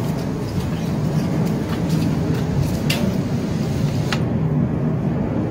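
Steady low rumble with a few sharp, light clicks, about one a second, as small parts are handled and fitted onto a Honda GX35 engine's cylinder head.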